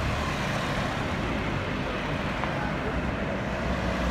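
Cars in a convoy driving past on a road: a steady mix of engine and tyre noise, with one vehicle's engine hum growing louder near the end as it comes closer.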